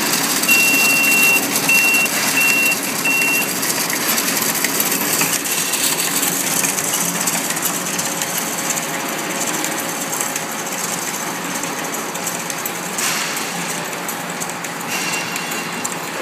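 Coffee stirrer paper-wrapping and packing machine running with a steady rapid mechanical clatter. Four short, high electronic beeps sound in the first three and a half seconds.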